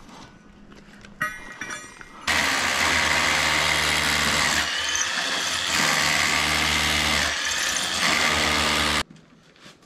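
Cordless drill boring into a stone paver. It starts about two seconds in after a few light clicks and runs steadily with two brief dips, then stops about a second before the end.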